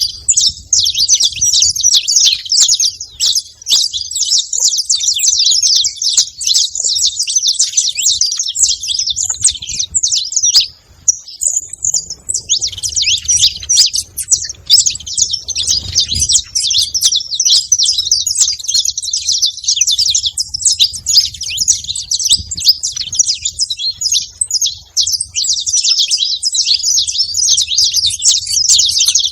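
Saffron finches chirping at a feeding spot: dense, overlapping high chirps that run almost without a break, with a short lull about a third of the way in.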